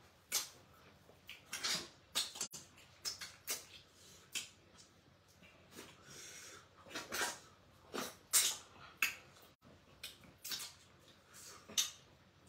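Close-up eating sounds from two people eating okra soup by hand: wet lip-smacking, slurping and chewing in quick, irregular bursts.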